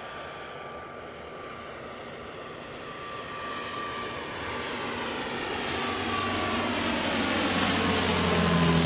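Twin-turboprop regional airliner on approach, passing low overhead. The drone of its engines and propellers swells steadily louder, and a high whine drops slightly in pitch as it passes near the end.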